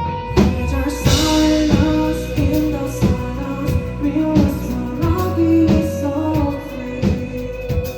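Live rock band playing with a sung vocal line over guitar and a steady drum beat.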